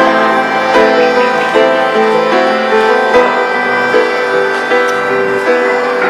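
Piano music: a melody of evenly paced notes over chords.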